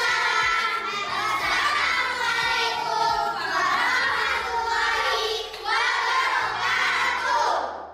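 A group of children singing together over a backing music track; the singing stops just before the end, leaving the backing music.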